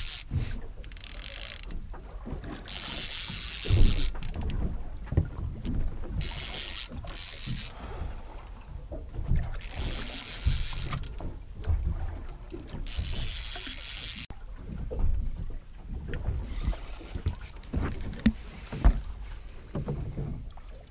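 Boat fishing reel being wound in bursts of about a second, every three to four seconds, as a fish is pumped up from the bottom. Under it are low wind buffeting and water slapping the small boat's hull.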